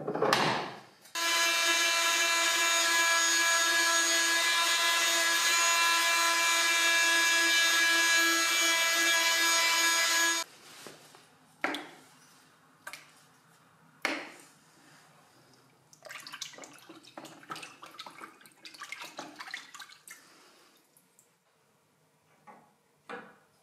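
An electric power tool runs at a steady high whine for about nine seconds, starting and stopping abruptly. It is followed by a few sharp wooden knocks and then several seconds of rubbing and scraping as a small wooden patch is worked into place.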